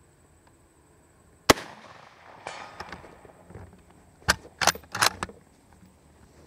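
A single rifle shot from a Type I bolt-action rifle in 6.5x50 Arisaka, about one and a half seconds in, with a trailing echo. About three seconds later the bolt is worked, giving a quick run of four or five metallic clacks.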